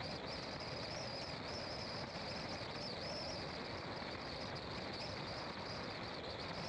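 A car driving steadily, with constant road and engine noise, and a high insect chorus from the roadside running over it.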